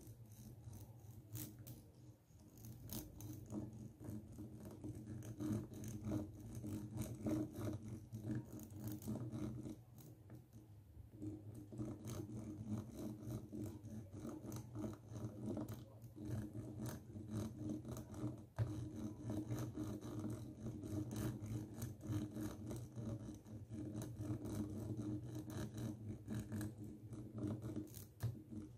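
Plastic comb teeth scraped back and forth across a microphone's mesh grille, a rapid run of fine scratchy clicks with a short lull about ten seconds in.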